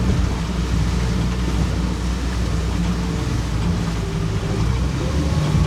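Small fishing boat's engine running steadily under way through a choppy sea, a constant low hum with the wash of waves breaking over the boat.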